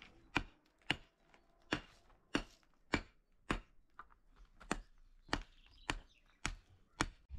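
Long-handled metal tool striking stones and earth around the base of a wooden post, packing them in to set the post upright: about a dozen sharp clinking blows at an even pace, roughly one every 0.6 seconds.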